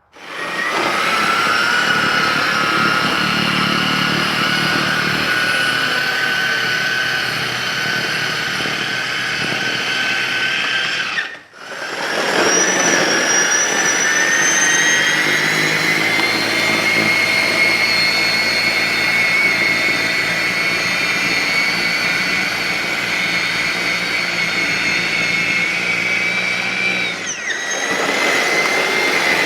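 EGO electric two-stage snow blower running, its motor giving a steady high whine that slowly rises in pitch. The sound breaks off for an instant about a third of the way through, then picks up again, with a brief dip near the end.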